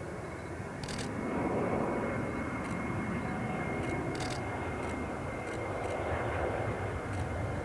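Jet airliner's engines roaring steadily, growing a little louder about a second in, with a thin steady high whine; a few short sharp clicks sound now and then.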